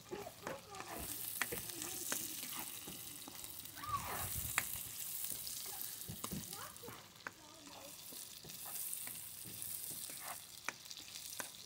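Oil sizzling in a wok as chili flakes fry, stirred with a spatula, with occasional sharp clicks through the steady hiss.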